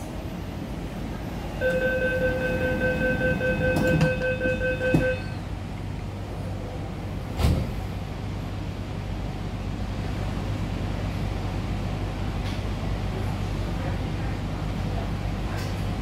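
MTR C-Train door-closing warning tone, a steady chord held for about three and a half seconds, with the sliding doors knocking shut near its end and another knock a couple of seconds later. The train then pulls away, a steady low hum and rumble of the running train building slightly.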